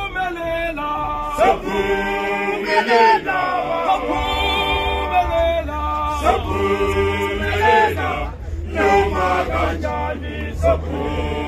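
Isicathamiya: an all-male a cappella choir singing in close harmony, in phrases of a few seconds each with short breaks between them.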